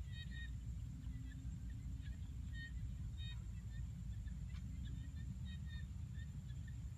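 Outdoor ambience: a low rumble, a steady high-pitched whine, and short high chirps repeating irregularly every half second to a second.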